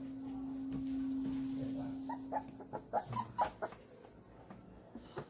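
Four-week-old golden retriever puppies whimpering, a run of short whiny cries about two to three seconds in, over a steady low hum in the first half.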